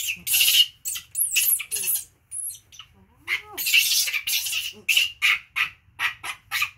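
Young macaques screaming in a string of harsh, high-pitched shrieks, some in quick pulsing runs, with a few short squeals that rise and fall in pitch, while the two monkeys scuffle.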